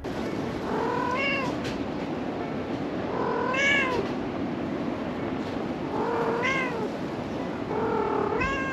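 A mother cat meowing four times, about every two and a half seconds, each call rising and then falling in pitch: she is calling her kittens.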